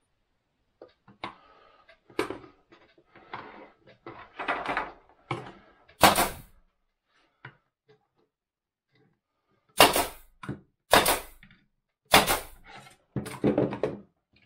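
Wooden pieces being handled and set down on a workbench: irregular knocks and clatter, with about five loud sharp knocks in the second half.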